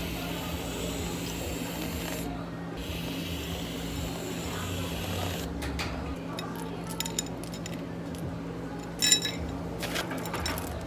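Glassware and dishes clinking and clattering over a steady low hum, the clinks starting about halfway through, with a loudest ringing clink near the end.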